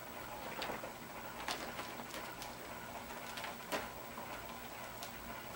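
Scattered light ticks and rustling as kittens clamber and claw over a fabric couch and a person's lap.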